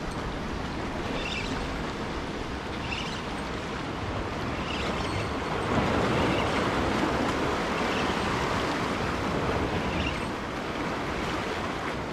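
Surf washing against the rocks of a jetty, mixed with wind on the microphone, swelling louder about halfway through. Faint short rasps recur every second or two.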